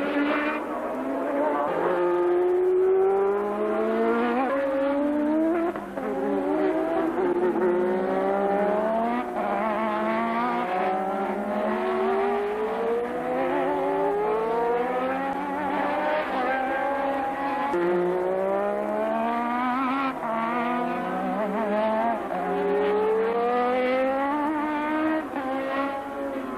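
1988 Formula 1 cars accelerating past, their engines climbing in pitch through each gear and dropping back at every upshift. Several cars overlap, so one engine's rising note starts while another is still sounding.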